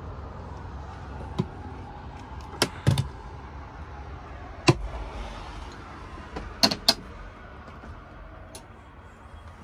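Scattered sharp knocks and clicks over a low steady rumble, typical of handling and cabinet or door sounds. The loudest comes about halfway through, and two come close together about two-thirds of the way in.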